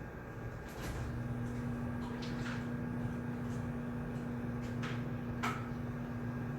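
Shared study room ambience: a steady low hum, joined about a second in by a steady low tone, with about half a dozen small, sharp clicks and knocks scattered through it.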